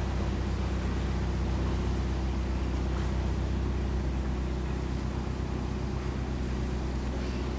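Narrowboat's diesel engine running steadily as the boat cruises slowly, a low, even drone.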